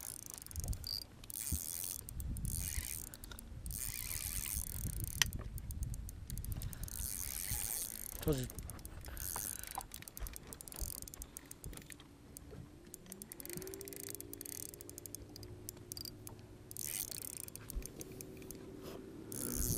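Fishing reel ratcheting and clicking while a big smallmouth bass is reeled in, with the clicks coming in thick runs, over a low rumble. A steady hum starts about two-thirds of the way through.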